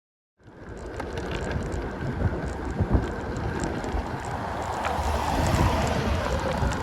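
Wind rushing over the microphone of a bicycle coasting fast downhill, mixed with tyre and road noise and occasional small clicks. It starts suddenly about half a second in.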